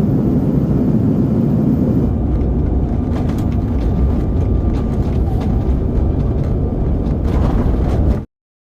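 Steady low rumble of a moving vehicle, with a few faint clicks, cutting off suddenly near the end.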